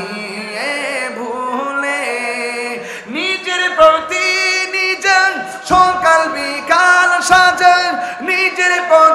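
A man singing a Bengali Islamic nasheed into a microphone: a long held note for about the first three seconds, then a run of short notes stepping up and down.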